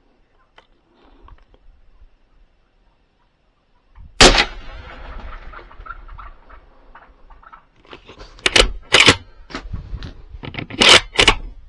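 A single rifle shot about four seconds in, the loudest sound, with a short echoing tail. Later comes a run of sharp knocks and clacks.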